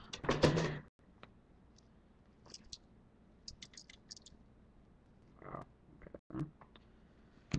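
Clear plastic packaging crinkling as a car-audio power capacitor is pulled out of its bag, stopping after about a second. Then faint handling clicks and rustles.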